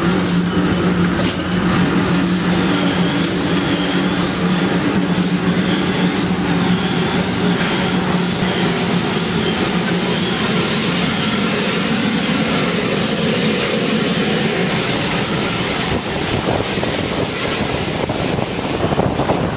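Slovenian Railways 25-026 steam locomotive running, heard from the cab: a loud, steady rumble and hiss with a steady low hum, and a regular beat about every two-thirds of a second that fades after about eight seconds.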